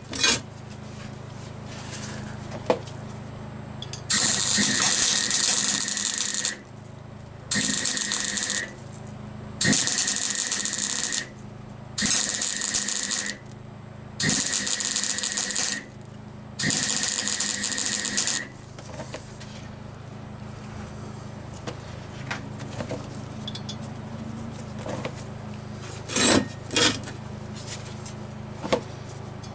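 Electric arc welding in six short runs of about one and a half to two seconds each, the crackling hiss starting and stopping abruptly, over a steady low hum. A few sharp knocks near the end.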